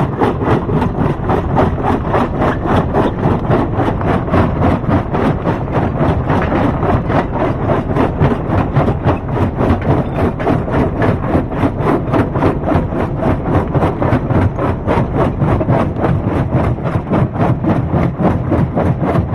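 Rock crusher machinery running steadily, with an even pulsing beat of about four a second.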